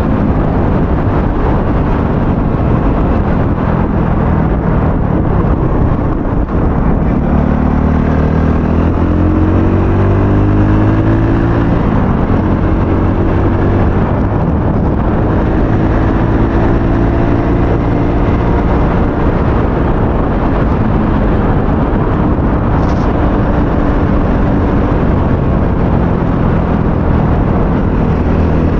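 Aveta Ranger 110's small single-cylinder engine running while riding, heard from a helmet-mounted camera with wind noise over it. The engine note climbs as it accelerates a quarter of the way in, drops at a gear change, and climbs again.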